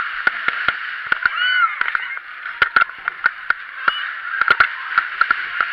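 Riders on a spinning fairground ride shrieking and laughing, with one rising-and-falling shriek about a second and a half in. Under it runs a steady rushing noise, broken by many sharp clattering knocks from the ride car.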